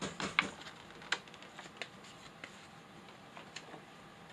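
Light clicks and taps of hard plastic packaging and the alarm clock being handled, a quick cluster at the start and then single clicks every second or so.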